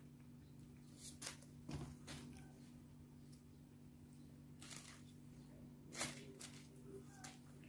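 Near silence over a low steady hum, broken by a few faint short clicks and rustles of handling, the loudest about six seconds in.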